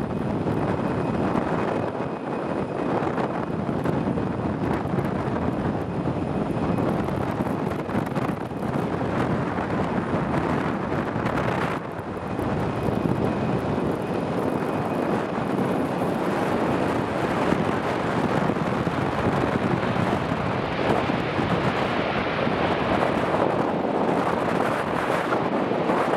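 Heavy wind buffeting the microphone over the steady jet noise of an Airbus A320-232 landing, its IAE V2500 engines. The sound grows harsher in the last few seconds as the airliner rolls out on the runway.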